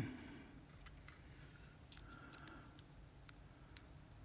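Faint, sparse metallic clicks and a soft scrape from small lock parts being handled as a pin-tumbler lock is taken apart and its spool pins and springs are removed. One click, a little under three seconds in, is sharper than the rest.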